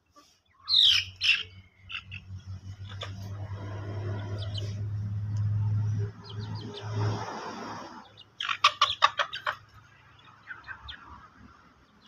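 Chickens calling: two loud calls about a second in, then a quick run of short calls about two-thirds of the way through, with a few softer chirps near the end. A low steady hum swells under the calls and stops about two-thirds through.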